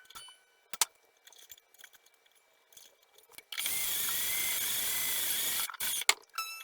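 Cordless drill with a string-winder bit running for about two seconds with a steady whine, winding a guitar string onto a tuner post. Small clicks and taps of handling come before it.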